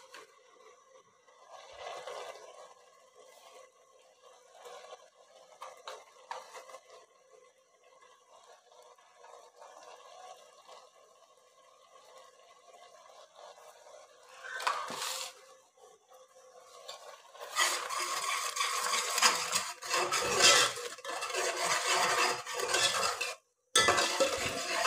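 Faint taps and light scraping as a small spoon takes spices from a plastic spice box. From about two-thirds of the way through comes a louder, continuous scraping and clinking of a spoon stirring a wet onion-tomato masala in a metal pot.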